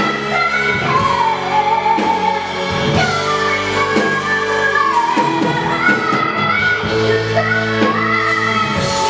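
Live pop band playing a slow song: sung melody over keyboard and a drum kit.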